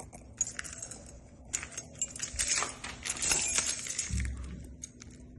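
Metal keys jangling and clicking while being worked in and out of a Kwikset SmartKey lock during rekeying, with a dull knock about four seconds in.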